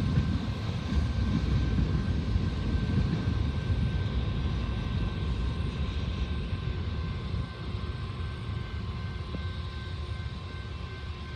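A passing train rumbling, the rumble slowly fading as it moves away, with a faint steady whine above it.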